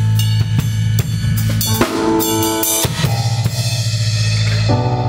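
Music with a drum kit: kick, snare and cymbal hits over held bass notes and chords that change every second or so.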